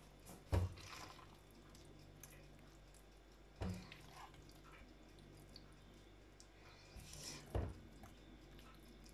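Spoonfuls of thick stewed eggplant and tomato ragout scooped from a frying pan with a plastic spoon and dropped into a ceramic bowl: three soft, wet plops and knocks, about three to four seconds apart.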